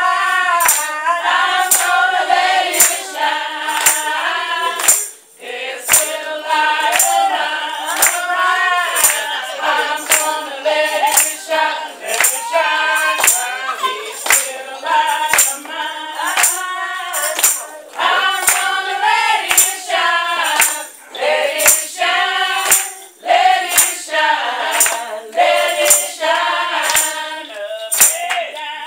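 Congregation singing together, with a tambourine struck on a steady beat about twice a second.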